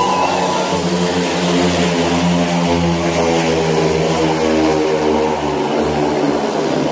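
Four speedway bikes racing, their 500 cc single-cylinder methanol engines running together. The engine notes overlap in one steady, loud drone.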